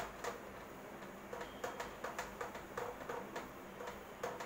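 A cloth wiping a whiteboard in quick back-and-forth strokes, a rhythmic swishing of about three strokes a second.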